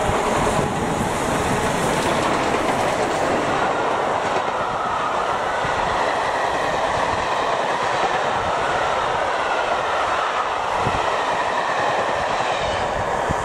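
Double-headed steam train, LMS Black Five 4-6-0 No. 45212 and Flying Scotsman No. 60103, passing at speed close by. The locomotives go by at the start, then a long rake of coaches follows with a loud, steady rush of wheel and rail noise and a clickety-clack over the rail joints.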